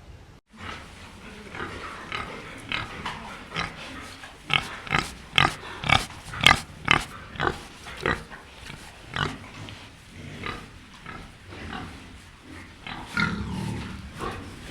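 Pig grunting in a long run of short, repeated calls, starting about half a second in and loudest in the middle.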